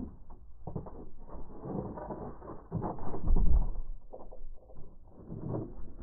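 Great tits landing and pecking on a wooden bird-feeder board, their feet and beaks giving a run of muffled knocks and rumbles. The audio is slowed down with the footage, so the knocks come out low and dull, with the heaviest thump about three and a half seconds in.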